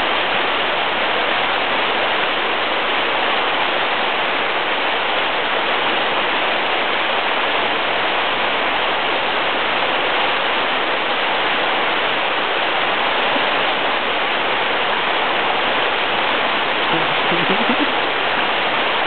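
Steady rush of flowing water, an even hiss without breaks.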